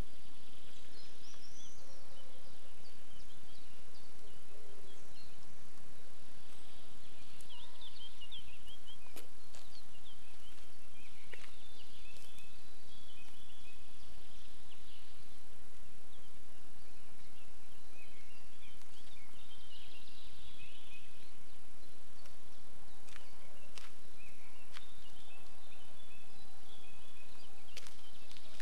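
Small birds chirping in short clusters every few seconds over a steady outdoor background, with a few faint sharp clicks.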